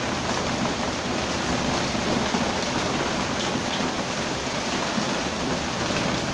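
Heavy rain falling steadily, a dense even hiss with a few faint drop sounds in it.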